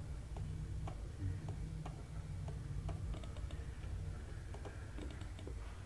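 Faint regular ticking, about two ticks a second, over a steady low hum.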